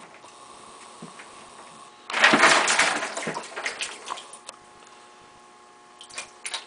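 A small American alligator splashing in a shallow tub of water as it strikes at a mouse. A loud burst of splashing starts about two seconds in and fades out over a couple of seconds, with a few short splashes near the end.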